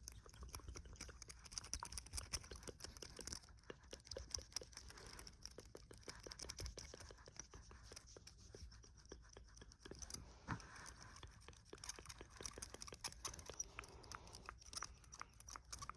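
Rapid, irregular tapping, clicking and scratching close to a sensitive microphone, as fast ASMR triggers, with a faint steady hiss underneath.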